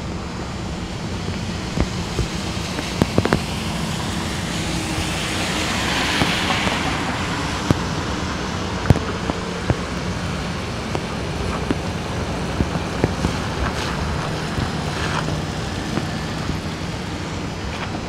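Car tyres on wet pavement over a steady background of rain and traffic hiss; one vehicle's tyre hiss swells and fades about five to seven seconds in, with scattered light ticks throughout.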